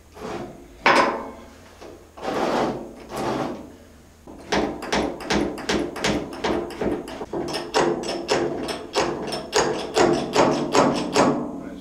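Steel chain clinking and clicking in a quick run, several clicks a second, from about four and a half seconds in as its slack is taken up to tension it. A few separate knocks and rattles come first.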